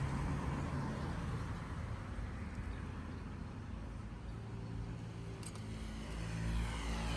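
Motor vehicles passing in street traffic: one engine's low rumble fades over the first few seconds, and another engine's steady hum comes in after about five seconds and grows louder near the end.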